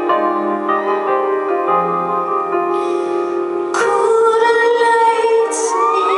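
Live concert music: a woman's singing voice over piano, with piano notes at first and a held, wavering sung note coming in about two-thirds of the way through.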